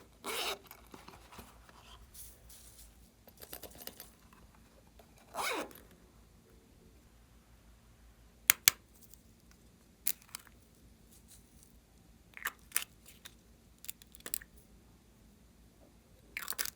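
Close-up handling sounds of slime-making: a few short tearing or crinkling bursts and several sharp clicks, spaced out with quiet gaps between them.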